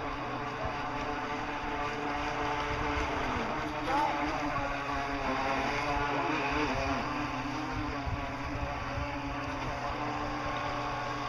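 Remote-control boat motors running on the water, a steady whine whose pitch rises and falls as the throttles change.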